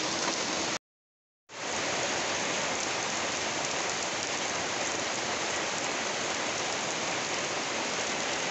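Heavy rain pouring steadily, streaming off a roof edge and splashing onto wet, puddled ground. The sound drops out completely for under a second about a second in, then fades back in and runs on evenly.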